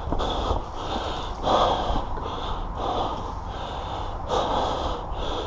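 A person breathing hard and fast, with a steady run of loud in-and-out breaths: panting from exertion after running.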